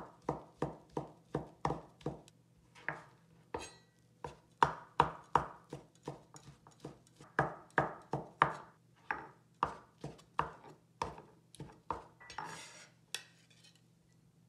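Chinese cleaver chopping soaked shiitake mushrooms on a plastic cutting board, steady knocks about three a second. Near the end the blade scrapes the diced pieces across the board.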